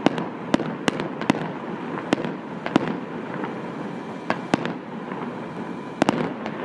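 Aerial fireworks display: a string of sharp shell bursts at irregular intervals, about a dozen in all, over a steady background of noise, with a quick pair of bangs near the end.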